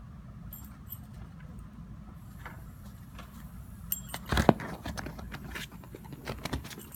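A Yorkshire terrier's collar jingling and clicking as it runs up close with a tennis ball, in a cluster of sharp metallic clicks that is loudest about four and a half seconds in, over a steady low hum.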